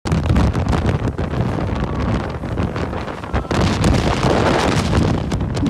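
Hurricane wind rushing and buffeting the microphone in loud, uneven gusts.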